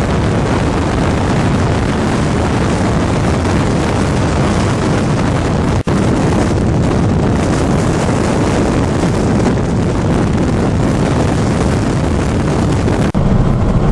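Steady, loud rushing roar of wind and road noise from a moving vehicle. It breaks off for an instant about six seconds in and again near the end.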